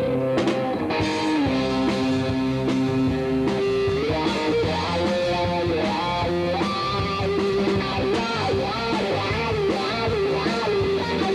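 Live rock band playing: a Les Paul-style electric guitar carries a melody of held and bending notes over drums.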